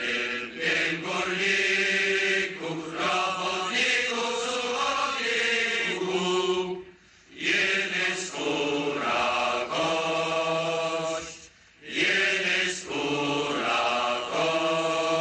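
Voices singing a slow, chant-like song in long held phrases, breaking off briefly about seven and twelve seconds in.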